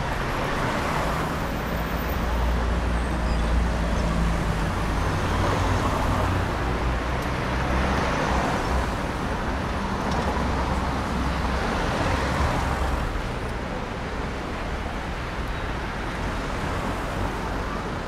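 Road traffic on a city avenue: cars passing one after another, a steady low rumble with several swells as vehicles go by.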